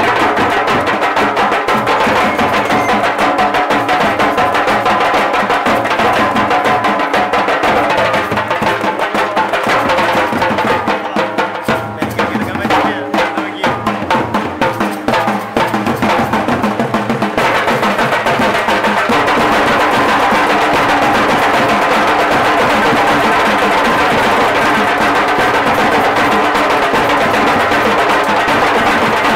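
A Nasik dhol group of drums beaten hard with sticks in a fast, loud rhythm. A little past halfway the playing turns denser and more even.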